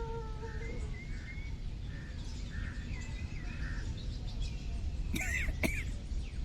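A man's drawn-out, pitched throat sound from ujjayi breathing trails off within the first second. Then small birds chirp over a steady outdoor background hum, with two sharper, louder bird calls about five seconds in.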